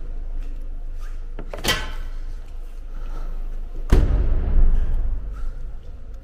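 A car door slams with a heavy thud about four seconds in, after a sharper knock near two seconds. A low, steady rumble runs underneath.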